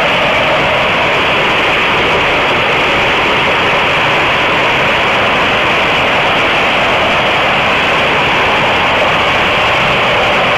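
Torrential downpour of rain and hail falling on roofs: a loud, steady, dense hiss.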